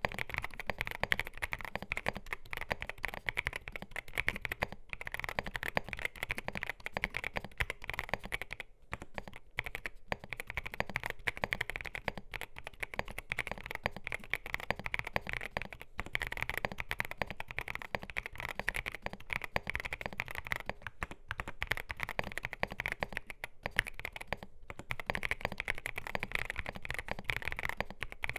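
Continuous fast typing on a CIDOO ABM081 mechanical keyboard with CIDOO Carda switches, a polycarbonate plate, MDA PBT doubleshot keycaps and gasket mounting: a dense run of key clicks, broken by a few brief pauses.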